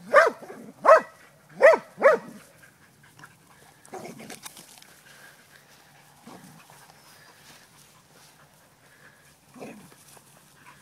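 A dog barks four times in quick succession over the first two seconds or so, followed by faint scuffling and a single soft call near the end.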